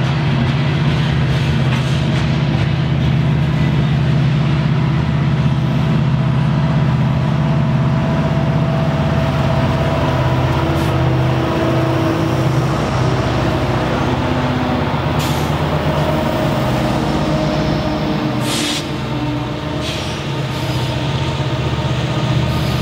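Diesel freight locomotive engines running with a steady, low drone, and a few short hisses of air in the second half.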